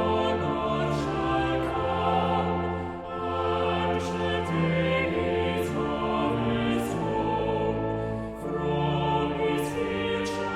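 Choral music: a choir singing slow, held chords that change every second or two, with sibilant consonants of the words audible.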